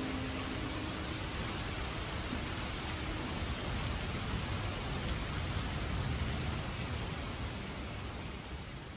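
Steady rain falling, a continuous hiss of drops. The last held chord of the music dies away in the first second, and the rain slowly fades toward the end.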